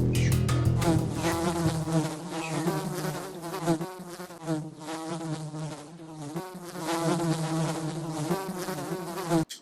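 A flying insect buzzing close by, its drone wavering in pitch and loudness as it moves about, then cutting off near the end.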